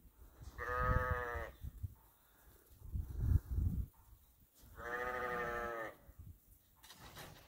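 Sheep bleating: two long, steady bleats, the first about half a second in and the second about four and a half seconds in, each lasting about a second. Between them, about three seconds in, comes a short low rumbling noise.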